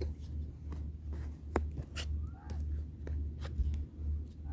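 Wind buffeting the microphone with a pulsing low rumble, a few sharp clicks as an oracle card is handled and set down, and a crow cawing faintly about halfway through.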